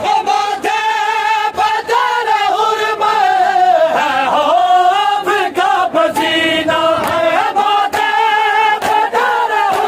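Several men singing an Urdu noha (a mourning lament for Karbala) together, holding long, wavering notes. Sharp slaps about twice a second, typical of a crowd beating their chests in matam, sound under the singing.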